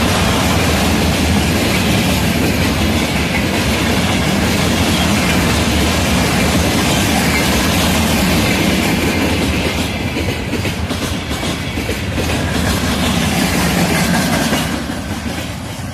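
Train behind a VL10 electric locomotive passing close at speed, its wheels clattering in a clickety-clack over the rail joints and the cars rattling; the clatter begins to fade near the end.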